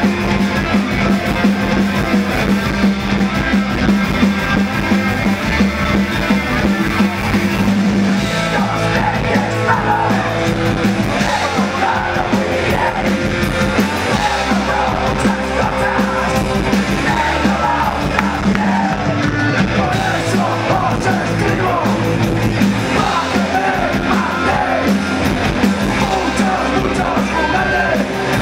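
Punk rock band playing live on electric guitars and drums, loud and continuous, with shouted vocals coming in about eight seconds in and carrying on over the band.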